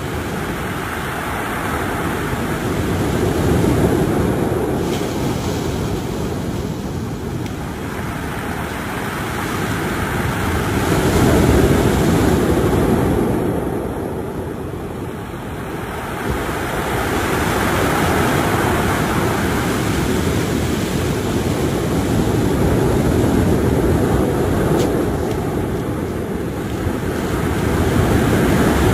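Ocean surf breaking and washing up a cobble-stone beach, swelling and fading in slow surges every several seconds.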